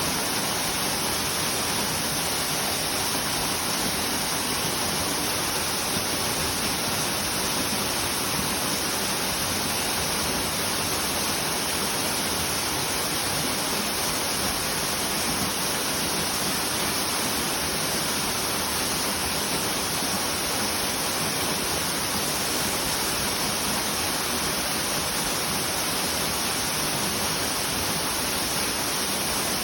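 Waterfall pouring steadily into a mountain river: a constant, even rush of falling water.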